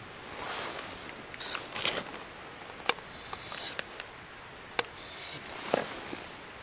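Food prep on a wooden cutting board: soft rustling as food is handled, with a few sharp taps of a knife on the board as tofu is cut into cubes.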